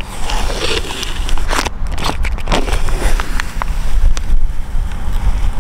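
Paper transfer tape on a vinyl decal crinkling and crackling as it is handled and peeled back from a car's body panel, a series of sharp crackles, over a steady low rumble.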